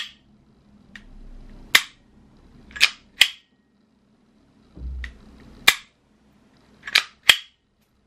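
Airsoft SIG Sauer P320 M18 gas blowback pistol being dry-fired by hand: a series of sharp metallic clicks from the trigger breaking and resetting, spaced unevenly. Near the end the slide is pulled back and let go, giving two quick clicks.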